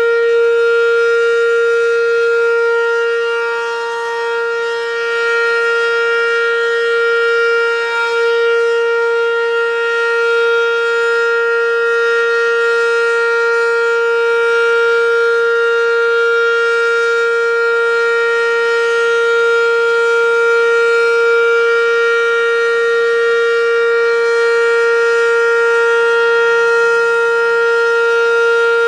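American Signal OM-117 omnidirectional outdoor warning siren sounding the full alert signal: one loud, steady tone held without rising or falling, rich in overtones, dipping slightly in level a few seconds in.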